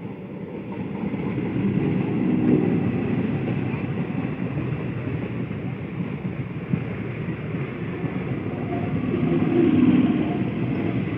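Indian Railways electric multiple unit local train running past, a steady rumble of wheels on rails that builds over the first couple of seconds as it comes close and stays loud as the coaches go by, loudest near the end.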